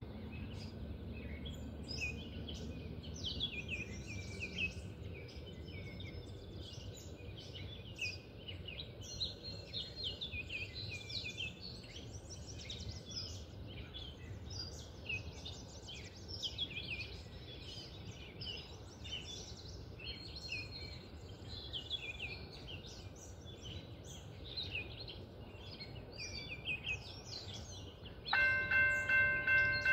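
Birds singing over a low steady background. Near the end, a railroad crossing warning bell starts ringing in even strokes about twice a second, much louder than the birds, as the crossing signals activate for an approaching train.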